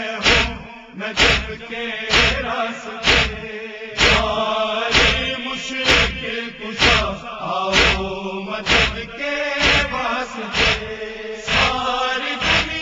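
Voices chanting a noha, an Urdu lament, over matam: mourners beating their chests together in a steady beat about once a second.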